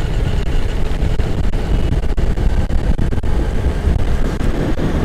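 Wind buffeting the microphone of a moving scooter, mixed with road and engine noise: a loud, steady low rush with constant flutter.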